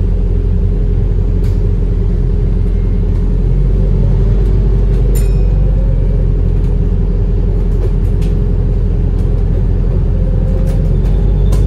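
A Wright New Routemaster double-decker bus on the move, heard from inside on the upper deck: a steady low rumble with a faint whine that rises a little about five seconds in, and a few sharp rattles.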